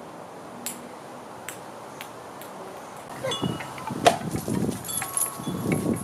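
Two small dogs scampering across a lawn, heard as scuffling and rustling from about three seconds in, with a sharp clink about four seconds in. Faint chime-like ringing runs underneath.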